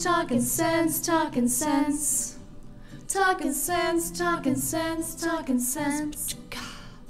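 A woman singing a short tune without accompaniment into a handheld microphone, moving from note to note in short held phrases, with a brief pause about two and a half seconds in.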